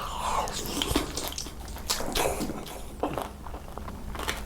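Close-miked eating: irregular wet, squishy chewing and biting sounds.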